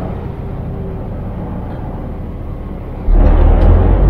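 Scania truck under way, its engine and road noise running steadily. About three seconds in, a sudden, louder rumble sets in.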